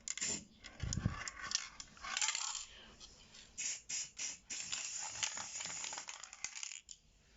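Hands working on a washing machine: a run of sharp metallic clicks and rattles, with stretches of scraping or hissing noise, stopping about a second before the end.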